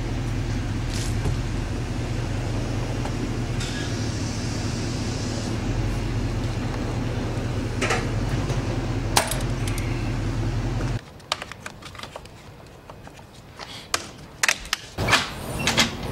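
A steady low mechanical hum with a few sharp clicks as a Dent Dial glue-pull tool is turned to pull a roof dent. The hum cuts off abruptly about two-thirds of the way through, leaving quieter light metallic clinks and knocks near the end.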